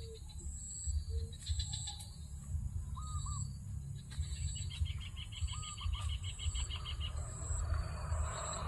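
A triller (kapasan) calling in short paired notes. About five seconds in comes a fast, even trill lasting some two seconds. Under it runs a steady low rumble, and a high buzz pulses in a regular rhythm.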